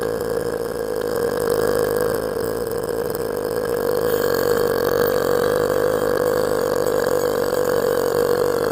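A girl's long, unbroken burp, held at one steady pitch.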